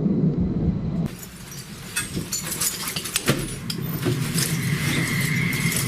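A low rumble that cuts off about a second in, then irregular metallic clicks and clinks over a steady low hum, with a steady high whine joining near the end.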